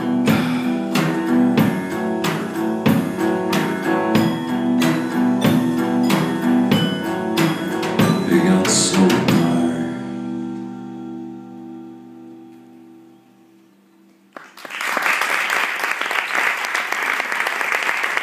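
Acoustic guitar strummed in a steady rhythm, ending on a final chord that rings out and slowly fades away. Then, about three-quarters of the way through, audience applause starts suddenly and carries on.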